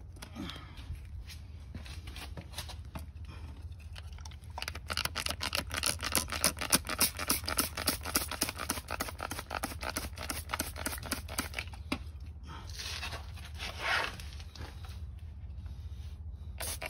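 Plastic trigger spray bottle squirted in a fast run of short spurts, heaviest in the middle, with a brief pause and one longer spray near the end. A steady low hum sits underneath.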